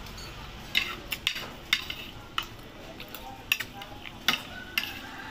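Close-up eating sounds from chicken feet adobo being chewed and handled by hand: a string of irregular sharp smacks and clicks from mouth, fingers and bones.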